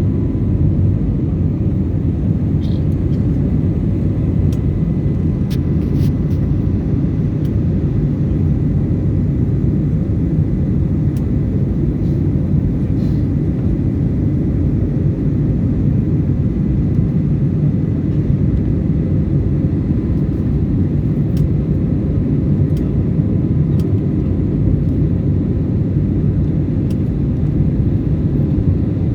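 Steady low rumble of a jet airliner's engines and rushing air heard inside the passenger cabin in flight after takeoff, with a faint steady high hum over it.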